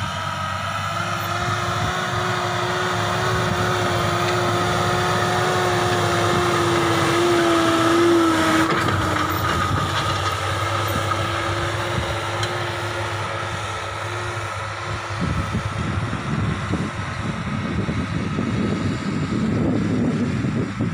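John Deere tractor running at high speed while pulling a disc harrow through ploughed soil: a steady engine drone with a whine over it. About fifteen seconds in the whine drops out and the sound turns rougher and uneven.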